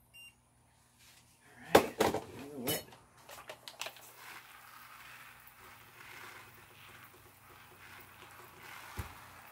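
Knocks and clatter about two seconds in as the infrared thermometer is put down and a hand-pump pressure sprayer is picked up, then a faint steady hiss of the sprayer misting the eggs. A single knock comes near the end.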